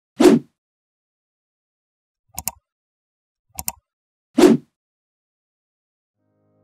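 Sound effects for an animated subscribe-button graphic: a short whoosh, then two quick double mouse clicks about a second apart, then another short whoosh.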